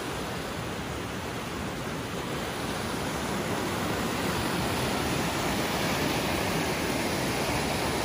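Creek water rushing through small rapids between granite boulders, a steady rush that grows a little louder in the second half.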